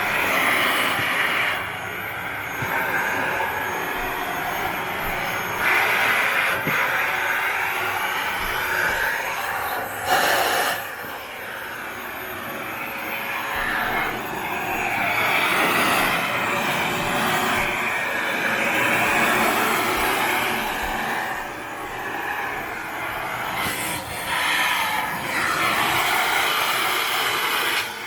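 Panasonic paper-bag canister vacuum cleaner running with its nozzle, the suction noise rising and falling as the nozzle is worked along the room's corners. A brief louder burst comes about ten seconds in.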